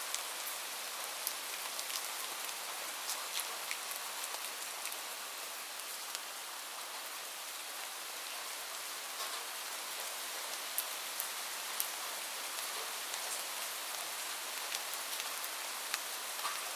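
Light rain falling steadily, an even hiss with scattered individual drops ticking on a surface.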